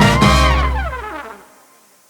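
Background music ends on a held final chord with falling notes, fading out about one and a half seconds in.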